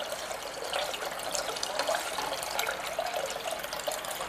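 Cold water poured in a steady stream into a steel pot of buttermilk mixture, splashing into the liquid.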